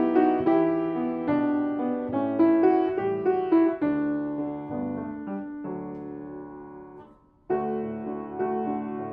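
Piano music: notes played one after another, then a chord left to fade for a few seconds, a brief break about seven seconds in, and the playing picks up again.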